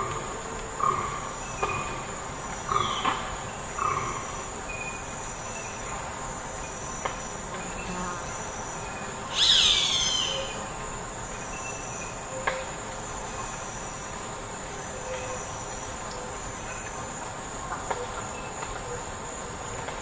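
Forest ambience of birdsong: a run of short calls in the first four seconds, one loud call sweeping steeply down in pitch a little after nine seconds, and scattered faint chirps, over a steady high-pitched insect drone.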